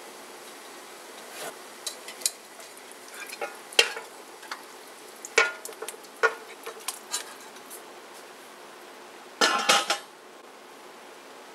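Spatula knocking and clinking against a wok as chicken wings are slid into boiling water, a dozen or so sharp knocks over a steady low hiss of the boil. Near the end a stainless steel lid is set on the wok with a brief metallic clatter, the loudest sound.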